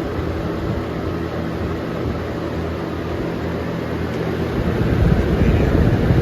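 Two box fans, a Lasko 3723 and an Air King 9723, running together: a steady rush of air over a low motor hum. About four and a half seconds in, a louder, fluctuating low rumble comes in.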